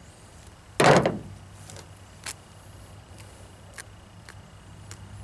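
A single loud thump about a second in, like something set down or struck on a hard surface, followed by a few faint ticks.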